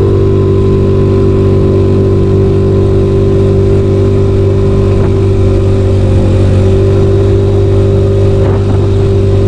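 Yamaha Mio Sporty scooter's single-cylinder four-stroke engine running at a steady speed while riding, its engine note holding one pitch.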